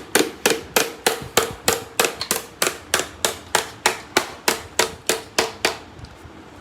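Hammer striking metal in quick, even blows, about three a second, each with a short ringing note; the blows stop about a second before the end.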